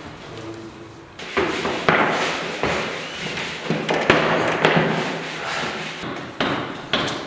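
Irregular series of thumps and knocks on a kitchen work table, roughly one every half second to second, each with a short echo off hard walls.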